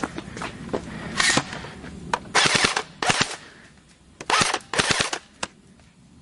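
Airsoft guns firing at close range: scattered single shots, then several short bursts of rapid fire in the middle.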